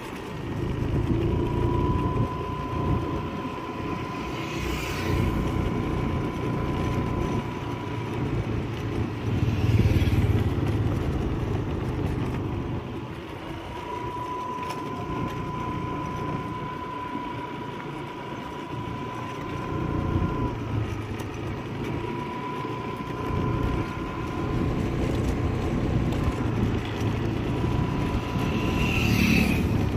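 A vehicle travelling along a road, heard from on board: a steady low rumble of engine and road noise. A thin, steady high tone sounds for several seconds at a time, three or four times.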